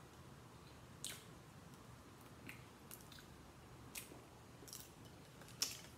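Scattered small clicks and cracks, about six of them, the loudest near the end, as snow crab shells are cracked and picked apart by hand while eating, with some quiet chewing.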